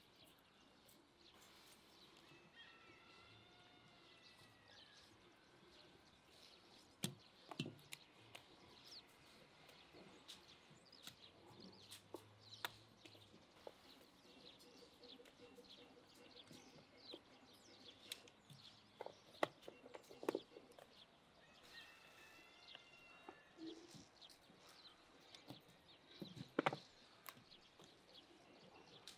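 Faint, scattered taps and knocks as pieces of raw carrot and bell pepper are laid by hand onto meat in a cast-iron kazan, a few sharper knocks among them. A bird calls faintly twice.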